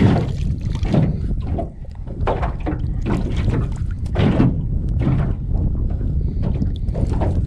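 Water from a plastic bottle poured over a hand and splattering onto the surface beside an aluminium jon boat, with small waves slapping the hull and wind rumbling on the microphone.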